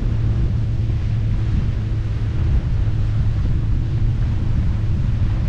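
Wind buffeting the microphone and water rushing past a banana boat being towed at speed, with the steady drone of the tow boat's engine underneath.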